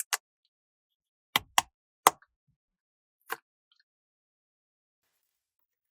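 A few short, sharp clicks and taps: one at the start, two close together about a second and a half in, one just after two seconds and a last one a second later.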